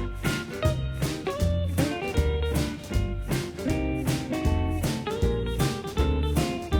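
Background music: an upbeat guitar-led track with a bass line and a steady drum beat.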